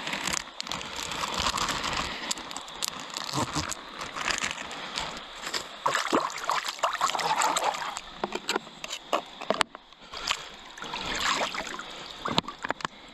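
River water splashing and sloshing as trout fillets are rinsed off by hand in the stream, with uneven splashes over the steady sound of the flowing river.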